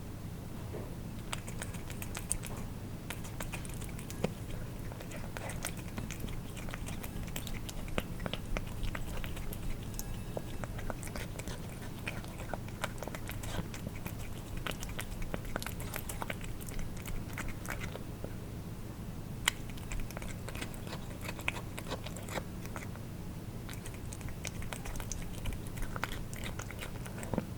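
Cats eating wet food: irregular wet chewing and tongue-lapping clicks, close up.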